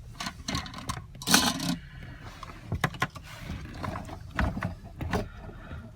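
Scattered clicks, knocks and rustles of a car's fuel pump assembly and its hoses being handled and worked into place in the fuel tank, with one louder rustle about a second and a half in.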